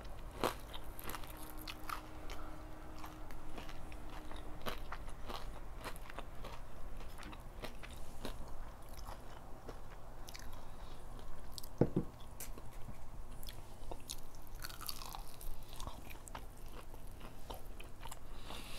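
Close-up chewing and crunching of crispy Popeyes fried chicken, many small crisp bites and wet chewing noises. One sharper knock about twelve seconds in.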